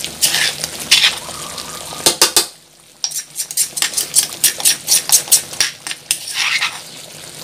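Metal spatula scraping and clinking against a wok, stirring a thick chicken satay sauce with freshly pounded peanuts mixed in. The strokes stop briefly about two and a half seconds in, then go on.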